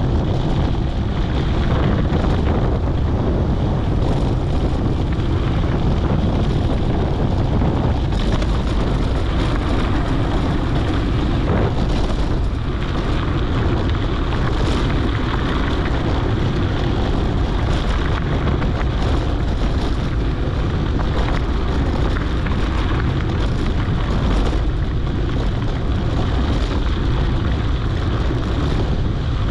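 Wind buffeting a GoPro's microphone while a mountain bike rolls over a dirt and rock trail: a steady low rumble of wind and tyres, with occasional knocks and rattles from bumps.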